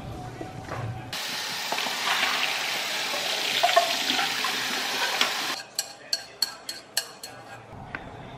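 A spoon stirs noodles in a saucepan. Then, about a second in, a kitchen faucet's stream runs steadily into a steel sink over the pot and colander as instant noodles are drained. The water cuts off after about five and a half seconds, and a run of sharp clicks follows.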